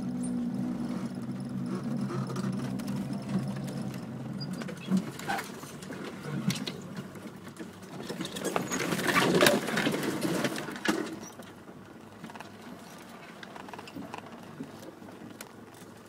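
Land Rover Discovery Mk1's engine running at low speed, heard from inside the cabin, with knocks and rattles from the bodywork. About eight seconds in, branches scrape loudly along the windscreen and body for a few seconds.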